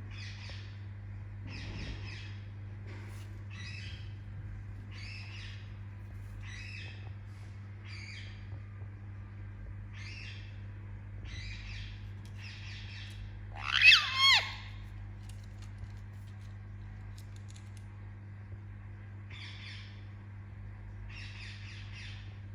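Indian ringneck parakeet giving short chirps about once a second, with one much louder two-part squawk falling in pitch about two-thirds of the way through. A steady low hum runs underneath.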